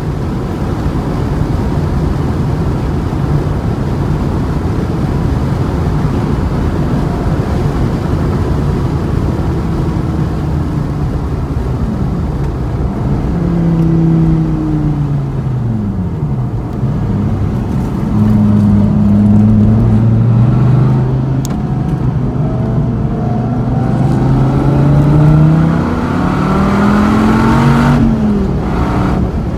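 Sports car driven hard on a racetrack, heard onboard: a heavy rush of wind and road noise at first, then the engine's note climbing and falling through the gears, rising under acceleration in the second half and dropping sharply near the end.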